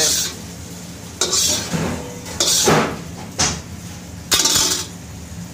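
Metal spatula scraping and clanking against a wok in about five short bursts, over a steady low hum.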